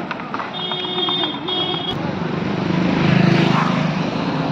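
A motorcycle engine passing close, its hum swelling to its loudest about three seconds in. A high steady beeping tone sounds twice in the first two seconds.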